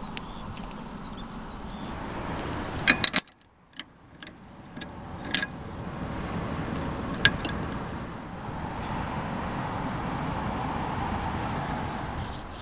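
Sharp metallic clinks and clatter of parts or tools being handled, over a steady background noise, with a cluster of clicks about three seconds in and single clicks after it.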